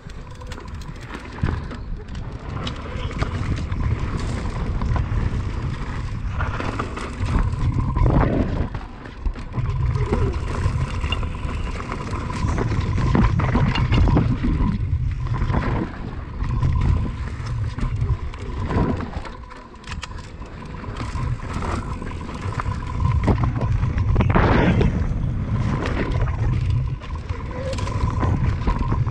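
Wind buffeting the microphone of a camera on a mountain bike, in uneven gusts, over the crunch and rattle of the tyres and frame on a sandy dirt trail. A faint steady high tone runs underneath.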